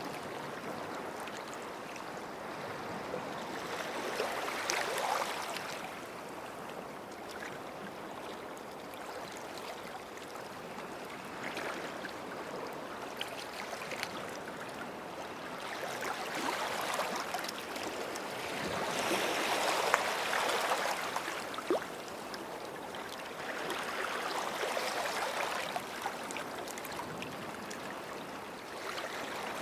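Small sea waves washing in and out on the shore. The hiss swells and ebbs every few seconds, with the biggest surge about two-thirds through, and faint crackles of foam run through it.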